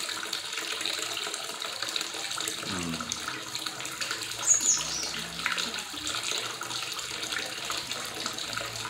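Flush water running out of a motorcycle cooling system's drain in a steady stream and splashing into a nearly full bucket of water.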